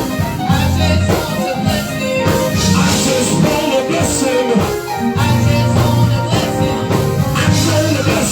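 Live church band playing an upbeat gospel praise-break groove, with bass, drums and guitar and some singing.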